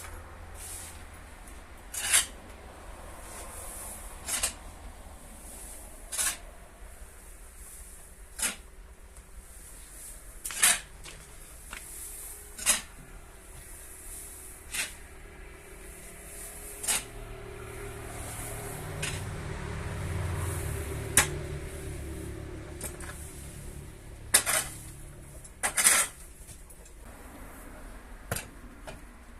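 Sharp clinks or knocks, about a dozen, coming roughly every two seconds, with a low hum that swells and fades in the middle.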